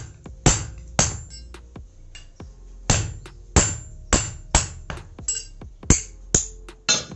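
Hand hammer striking a steel strip held on an anvil block, about ten sharp, unevenly spaced blows, a few ringing briefly. The strip is being bent down bit by bit into an earth-auger blade.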